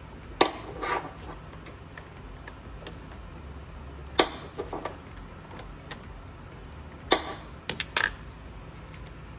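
Metallic clicking of a ratchet and 8 mm socket loosening the negative battery terminal nut, in three short bouts a few seconds apart, over a faint low hum.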